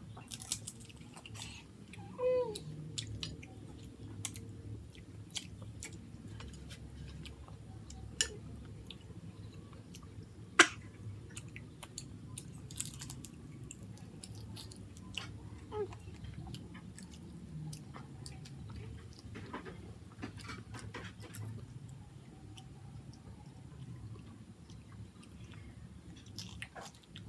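Children eating: quiet chewing and scattered clicks of plastic spoons and forks against plates, with one sharp click about ten seconds in. A brief falling squeak sounds about two seconds in.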